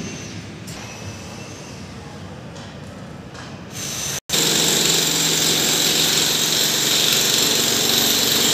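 Low background din, then after a short drop-out about four seconds in, the loud steady high-pitched noise of a power tool running.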